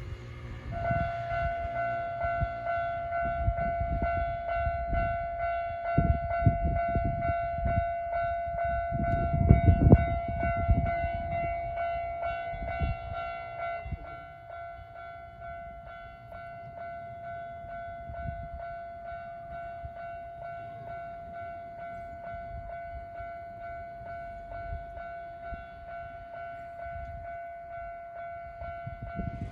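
Japanese level-crossing warning bell starting about a second in and ringing on as a fast repeating electronic ding. Under it, a Nankai Main Line electric train rumbles past with rapid wheel clacks, loudest about ten seconds in and dying away by about fourteen seconds.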